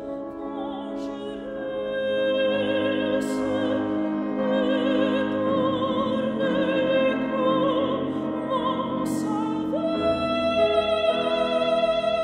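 Mezzo-soprano singing in full operatic voice with wide vibrato over piano accompaniment. About ten seconds in she moves up to a long held note.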